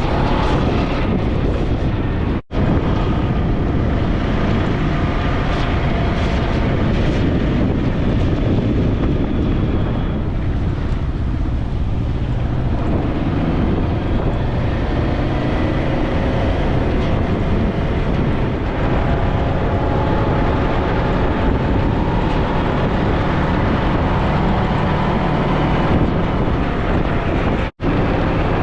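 Motorcycle riding along with its engine running and steady wind noise over the microphone. The sound cuts out briefly twice.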